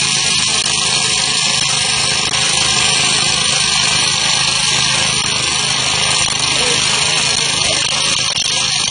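Core cutting machine running steadily as its core bit is fed down into a concrete block, a constant even drilling noise.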